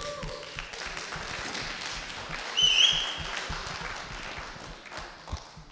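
Audience applauding, the clapping gradually dying away, with a short high tone that steps up in pitch about halfway through.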